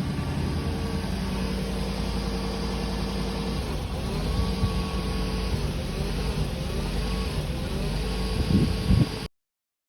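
Lexus LS400's 4.0-litre V8 running at a steady idle; the engine has a misfire and stalls now and then, which the owner is trying to fix. The sound cuts off suddenly near the end.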